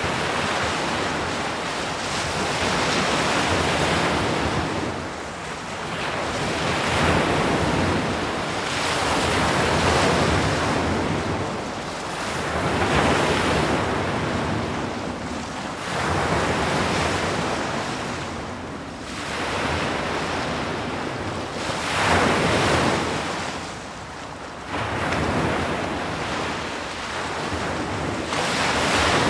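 Sea waves breaking on a shore, the surf swelling and falling away again every few seconds.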